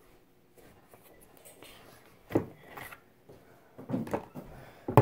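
A few knocks and thumps from things being handled close to the microphone: a sharp knock about two and a half seconds in, then a cluster of smaller knocks near the end.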